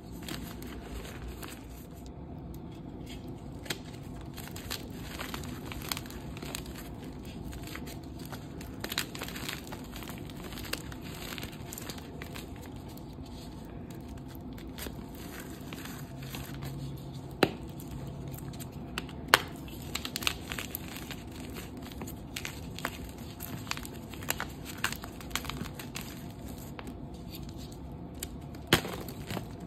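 Dyed gym chalk blocks and pressed chalk reforms being squeezed and crumbled by hand over a pile of chalk powder: a dry, crackling crunch. A few sharp snaps come as pieces break, the loudest a little past the middle.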